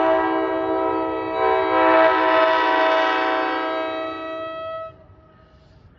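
ALP-45DP locomotive's horn sounding one long, steady multi-note chord as it approaches. It grows louder about a second and a half in and cuts off sharply about five seconds in.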